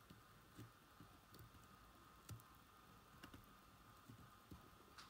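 Near silence: a few faint, sharp ticks of metal tweezers touching the thin wires and small circuit board of a wired remote control, over a faint steady thin tone.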